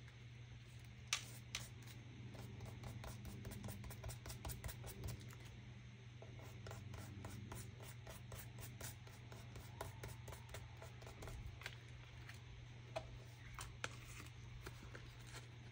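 Hands working small craft materials on a desk: faint rubbing and scratching with many light clicks and taps, a few sharper ticks among them, over a steady low hum.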